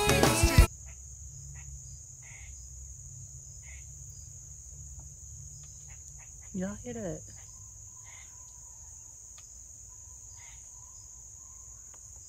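Background music cuts off about half a second in, leaving crickets chirring steadily at a high pitch. About six and a half seconds in there is a brief voice-like call that glides in pitch.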